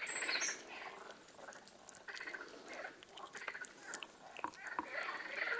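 Wet squishing and clicking of a raw whole chicken being pressed and gripped by hand, in an irregular run of short squelches.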